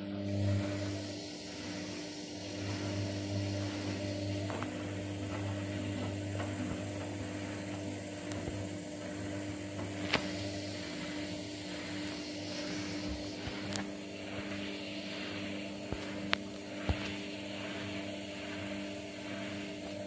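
Candy CS 105 TXT R front-loading washing machine in its final spin stage: a steady motor hum with the drum turning slowly, giving a rhythmic swish about once a second that quickens slightly toward the end, with a few faint clicks.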